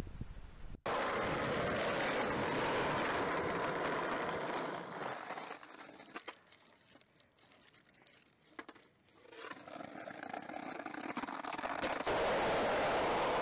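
Skateboard wheels rolling hard on asphalt, a steady gritty rumble. It drops away in the middle to a few sharp clacks of the board, then the rolling comes back loud near the end.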